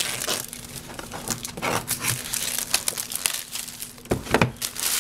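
Clear plastic wrapping crinkling as it is pulled off a cardboard product box, with the box being handled; a louder rustle and knock of the box about four seconds in.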